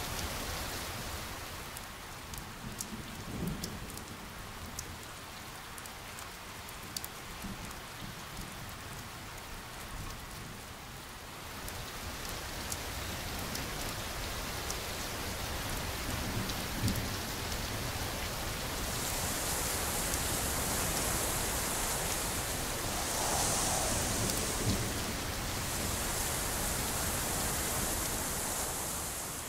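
Steady rain ambience: an even hiss of falling rain with scattered drop ticks and a few faint low thumps, growing louder and brighter in the second half.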